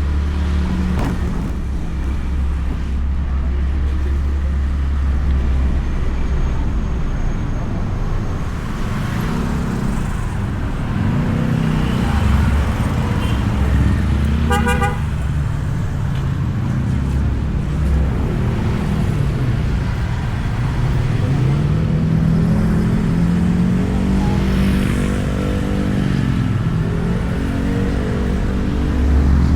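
Motor scooter riding in traffic, its engine note rising and falling with the throttle under heavy wind rumble on a mic inside the rider's helmet. A horn beeps briefly about halfway through.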